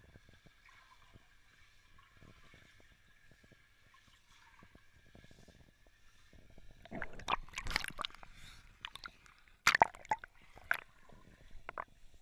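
Underwater pool sound from sea lions swimming close to the microphone: a faint steady background hum, then from about seven seconds in a burst of loud crackling, gurgling water and bubble noise, followed by a few sharp cracks near the end.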